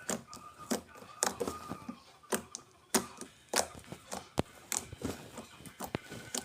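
Slime being squished and poked, giving an irregular run of sharp clicks and pops.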